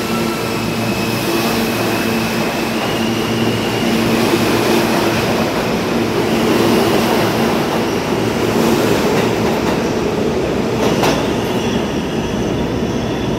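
R160A-2 New York subway train accelerating out of an underground station. Its electric traction motors whine, with a tone that steps up in pitch as it gathers speed, over the rumble of steel wheels on the rails. There is one sharp click near the end.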